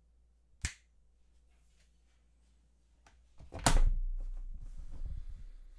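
A short click as a battery pack is set down in a felt-lined tray. About three and a half seconds in, the hard lid of a tech organizer case is shut with a loud thunk, followed by a little handling noise.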